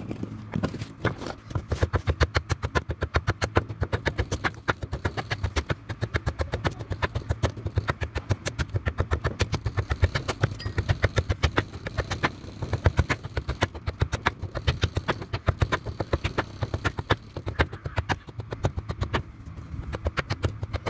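Rapid, steady knocking, about four to five strokes a second, as a piece of wood is struck against a blade on a wooden chopping block, shaving it into a tool handle.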